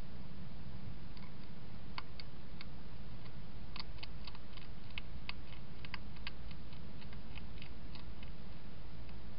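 Wild European hedgehog feeding with its snout in a bowl: a run of irregular, sharp little clicks and crunches of its mouth at the food, thickest in the middle, over a steady low hum.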